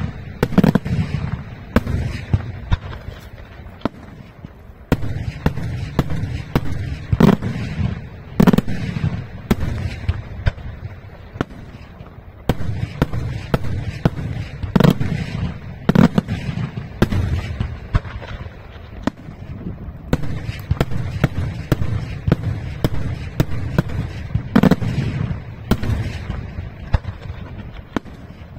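Daytime fireworks display: aerial shells bursting overhead in a rapid, continuous run of bangs, with heavier booms standing out every few seconds.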